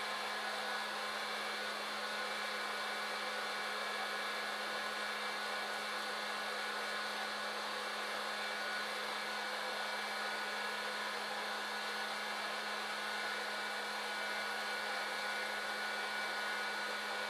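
Modified West Bend Poppery hot-air popcorn popper roasting coffee: its fan blows hot air up through the chamber with a steady rushing sound over a steady low motor hum.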